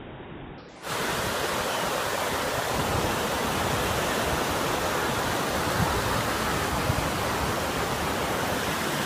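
Ocean surf breaking and washing on a beach, a steady, loud rushing noise that starts suddenly about a second in.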